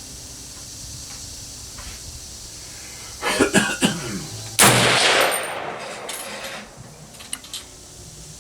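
A single shot from a .308 M1A semi-automatic rifle about four and a half seconds in, ringing out for about two seconds. It is preceded by a few sharp clattering knocks.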